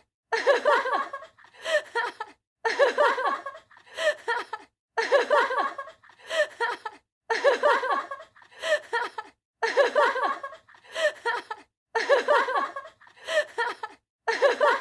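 A person laughing in about a dozen short bursts, each around a second long, with brief silent gaps between them.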